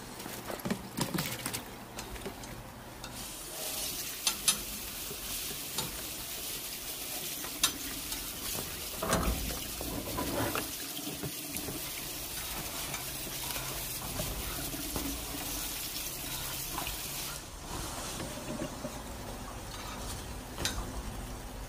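Kitchen cooking sounds: a steady hiss starts about three seconds in and stops abruptly near the end. Light clicks and knocks of utensils and cookware run through it, with a few heavier knocks about halfway.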